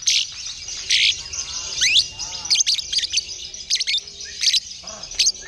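Contest songbirds singing in a dense run of quick high chirps and short notes, with a steep rising whistled sweep about two seconds in.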